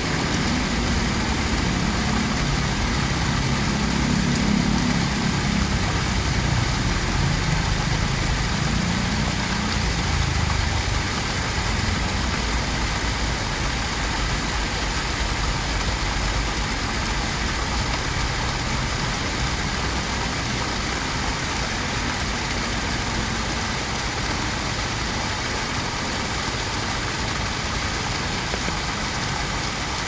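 Small garden rock waterfall splashing steadily into a shallow pond, with a low rumble underneath for the first ten seconds or so.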